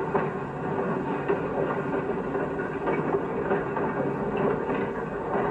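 Railroad freight car loaded with steel pipe rolling along yard track after coming down the hump: a steady rolling noise of wheels on rail with scattered clicks.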